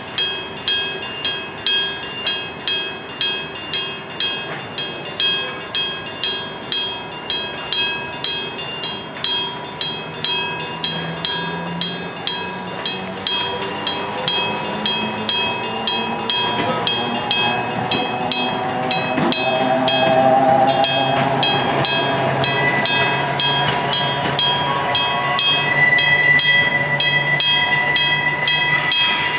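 Electric-bell (denshō-shiki) level-crossing bell ringing in steady, evenly spaced strokes. From about ten seconds in, the low, rising sound of an approaching train builds beneath it, and a high steady squeal joins near the end.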